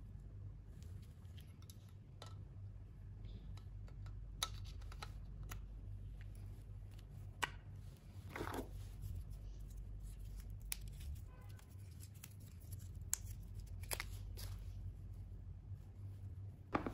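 Light handling noise of a plastic laptop power adapter and its plug attachment: scattered sharp plastic clicks and taps with soft rustling, then the coiled charging cable being picked up near the end, all over a steady low hum.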